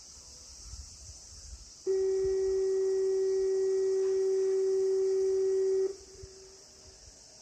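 A single steady electronic tone from a municipal disaster-prevention radio loudspeaker system. It starts about two seconds in, holds flat for about four seconds and cuts off sharply with a brief echo. Crickets chirp steadily throughout.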